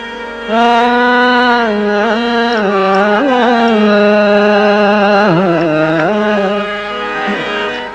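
Male folk singer holding long wordless notes with ornamented turns and slides (an alaap-like passage), over harmonium accompaniment. It begins after a brief dip about half a second in and eases off slightly near the end.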